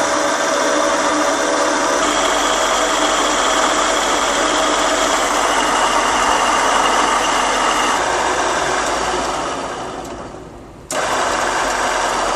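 Benchtop drill press (2M112) running under power, its belt-driven spindle and electric motor giving a steady whir. About nine seconds in the sound dies away as the machine winds down, then the running sound comes back suddenly at full level near the end.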